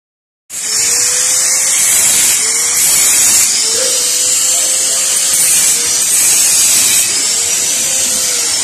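Electric angle grinder grinding the steel frame of a motorcycle topbox carrier: a loud, high hiss of the disc on metal over the motor's whine, which sags in pitch several times as the disc is pressed into the metal. It starts abruptly about half a second in.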